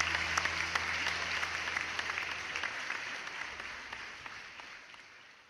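Audience applauding, dense clapping that fades out steadily over a few seconds.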